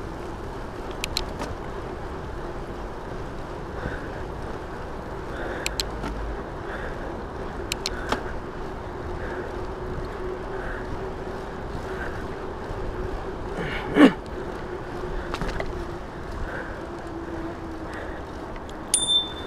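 Rad Rover electric fat-tyre bike rolling along a paved trail: a steady riding hum with a faint tone, scattered light clicks, and one loud thump about two-thirds of the way through. Near the end comes a short ring of the handlebar bell.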